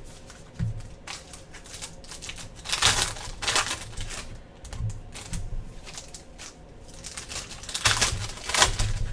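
Foil wrappers of Panini Prizm No Huddle football card packs crinkling and tearing as packs are ripped open by hand, with cards clicking and sliding against one another. The crackling is loudest about three seconds in and again near the end.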